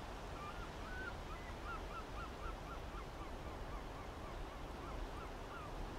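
A bird calling in a quick series of short chirps, a couple a second, over a steady low background rumble and hiss.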